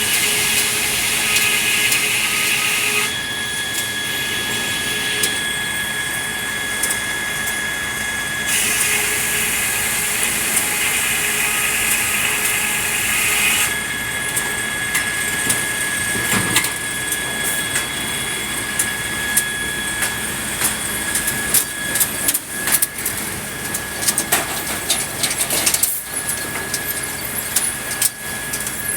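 Sawmill machinery running steadily while red pine is sawn. The sound of the saw cutting swells at the start and again from about eight to fourteen seconds in, with a steady machine hum between the cuts. Many sharp knocks and clatters of wood come in the last several seconds.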